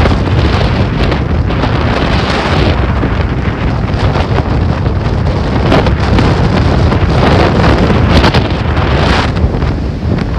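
Strong wind buffeting the microphone in gusts, with a heavy low rumble, over the rush of rough sea.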